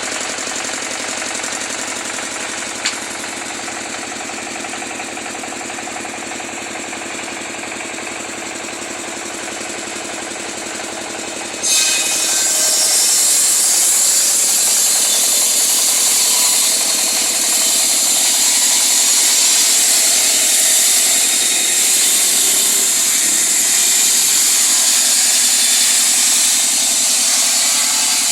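A woodworking power tool's motor running steadily. A single sharp click about 3 seconds in; about 12 seconds in the sound jumps suddenly louder, with much more high hiss, and stays there.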